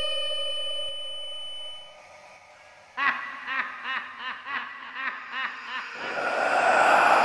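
A sustained eerie tone fades away, then about three seconds in a sinister ghostly laugh starts suddenly, a run of short snickering pulses about three a second for some three seconds. Near the end a loud rushing noise swells up.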